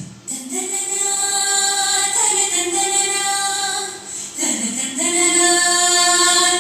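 A song with a singer holding long notes, in two phrases with a short break about four seconds in. It is played through an LA4440 amplifier board and speaker to test it for hum.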